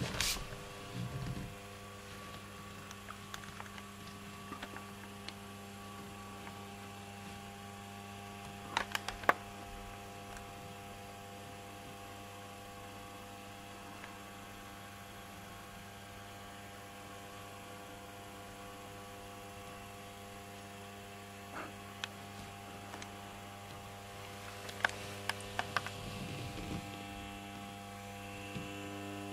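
Steady mains hum from a Rock-Ola Rhapsody 160 jukebox's valve amplifier, switched on with no record playing. A few sharp clicks come through, two about nine seconds in and several near the end.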